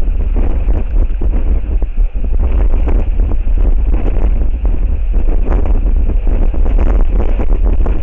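Strong wind buffeting an outdoor microphone: a loud, continuous low rumble with gusty flutter.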